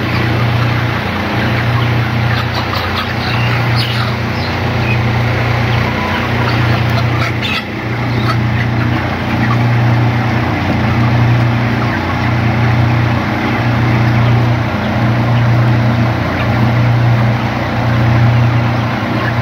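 Dense, steady noise of a large flock of broiler chickens in a shed, over a low machine hum that throbs evenly about every second and a half. A few sharp knocks and flutters come in the first few seconds and again about seven seconds in.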